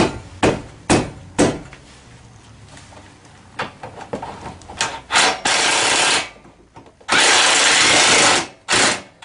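Bolts on an ATV's rear rack being fastened: a few sharp metal knocks and clicks, then two runs of a power driver of about one and one and a half seconds, and a brief third one near the end.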